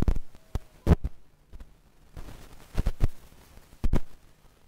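Four sharp thumps at uneven spacing, the first at the very start, then about a second in, near three seconds and near four seconds, with a low background between them.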